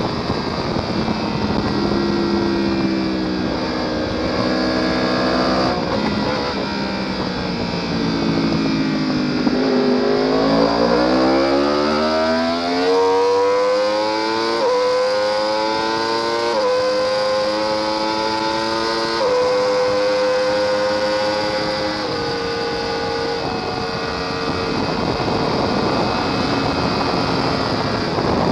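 Sport motorcycle engine at high revs, heard from on the bike: the pitch falls from about six to ten seconds in as it slows, then climbs hard through a run of quick upshifts, each a brief dip in pitch, before holding steady. Steady wind rush runs underneath.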